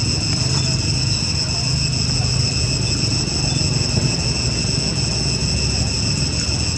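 Steady insect chorus, a constant high-pitched buzz that does not change, over a steady low rumble.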